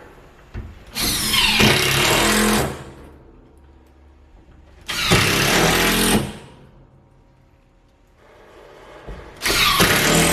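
Cordless drill driving drywall screws into wood framing: three runs of the motor, each about a second and a half long, starting about a second in, near the middle and near the end.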